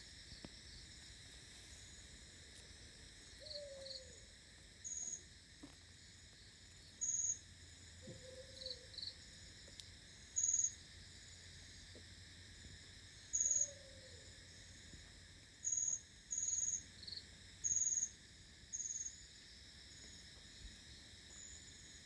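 Night insect chorus: a steady high hum with short, very high-pitched chirps repeating irregularly, more of them in the second half. A short low call that falls in pitch sounds three times.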